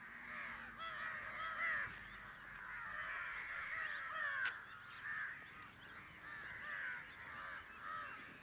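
A flock of crows cawing, many short calls overlapping continuously.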